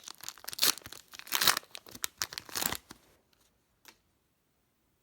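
A trading card pack wrapper being torn open and crinkled in the hands, in loud tearing and crackling runs that stop about three seconds in; a single light click follows shortly after.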